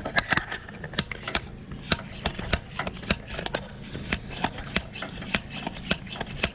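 Hand pump of a cooling-system pressure tester being worked, clicking quickly and evenly about three times a second as it pressurizes a GM 3.8L engine's cooling system to find a coolant leak.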